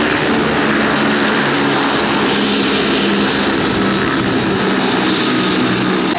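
Bell 206 JetRanger helicopter running on the ground, its turbine engine and two-bladed main rotor turning steadily, with a thin high whine over the rotor noise.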